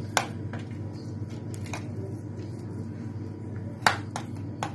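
A few scattered sharp clicks and knocks as a metal spoon and hands work a food layer inside a stainless steel square cake ring, the loudest about four seconds in, over a steady low hum.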